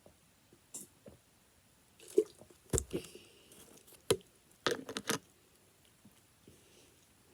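Handling noises as sweets are sorted in a bowl: scattered short clicks and knocks, with a cluster of them about five seconds in, and light rustling between.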